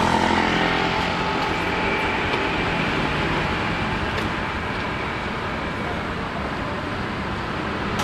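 Street traffic noise: a vehicle engine is loudest in the first couple of seconds and eases off into a steady hum of passing road traffic.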